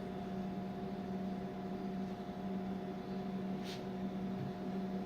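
Steady electrical hum and fan noise from the running OEC 8800 C-arm imaging system, with a brief soft hiss a little after three and a half seconds in.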